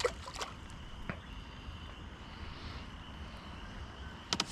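Faint water lapping against a canoe on a calm lake, with a few small clicks and knocks: several near the start, one about a second in, and a short cluster near the end.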